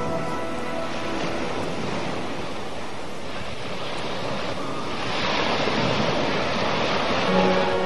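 Ocean surf washing onto a beach: a steady rushing that swells louder about five seconds in.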